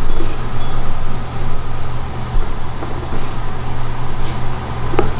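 Steady low mechanical hum, like a fan or motor, with a few faint clicks and taps and a sharper tap about five seconds in.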